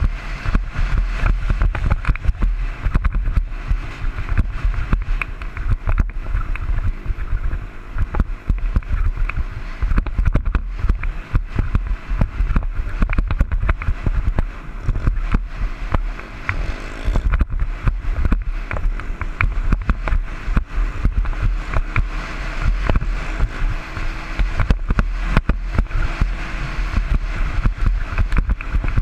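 Dirt bike ridden fast over a sandy trail, heard through a helmet-mounted camera: wind buffeting the microphone over the muffled engine, with frequent sharp knocks as the bike and helmet take the bumps.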